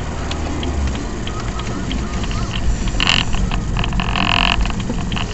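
Car running, engine and road noise as heard by a dash camera inside the cabin, with a faint regular ticking. Two loud bursts cut in: a short one about three seconds in and a longer one a second later.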